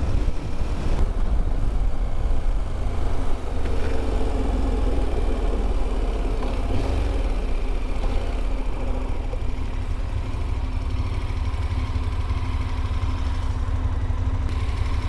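KTM 1290 Super Adventure S's V-twin engine running at low road speed as the bike slows, under a steady low wind rumble on the handlebar-mounted camera.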